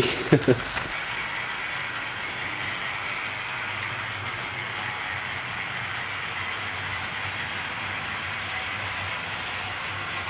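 Tri-ang 00 gauge model train running slowly on sectional track: the locomotive's motor and the coaches' wheels on the rails make a steady running noise at an even level.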